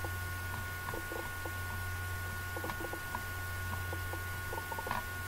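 Quiet background: a steady low electrical hum with a couple of faint steady tones above it and a few faint, scattered small ticks.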